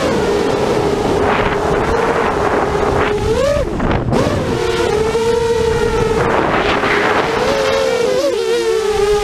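Electric motor and propeller of an FPV model aircraft whining at a steady pitch, heard from the onboard camera, with brief wobbles in pitch as the throttle changes, about a third of the way in and again near the end. Wind rushes over the microphone throughout.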